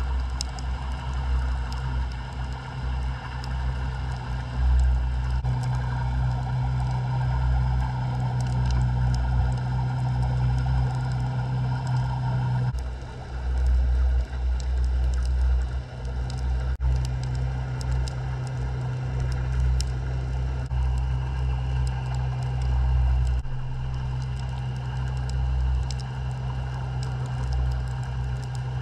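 Underwater sound from a camera resting on the sea floor: an uneven low rumble of moving water under a steady hum, which shifts slightly about 13 seconds in.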